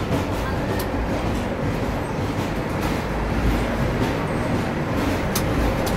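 Steady rumble and running noise inside a Garib Rath Express coach, with a couple of sharp clicks.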